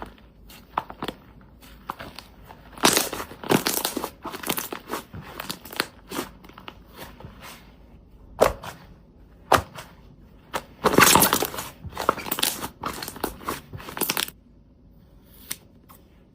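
Glossy slime being squeezed and pressed by hand, making irregular sticky clicks and crackling pops in bursts, loudest a few seconds in and again about two-thirds through, then dying away to a few single clicks.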